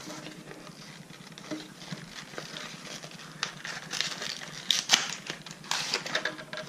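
Hands working open a cardboard puzzle box and its packaging: irregular clicks, taps and rustles, busiest and loudest from about four to six seconds in.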